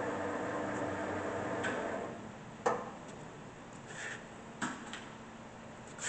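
Fortune 1640G geared-head engine lathe running with a steady hum that dies away about two seconds in. It is followed by several separate clicks and clunks of the headstock speed levers being shifted into low range.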